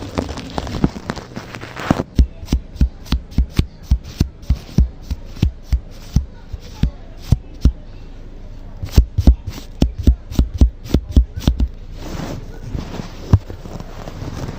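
ASMR trigger sounds made right on the microphone: a scratchy brushing hiss, then a long run of sharp taps, a few a second and irregular, each with a low thud, then brushing again near the end.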